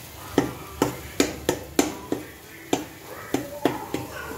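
Metal spatula knocking and scraping against a metal karahi while stirring a thick egg curry, a sharp clack roughly every third of a second at an uneven pace.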